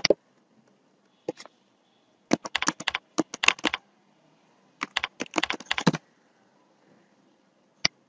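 Typing on a computer keyboard: a few single keystrokes, then two quick runs of key presses of about a second and a half each, and one last keystroke near the end.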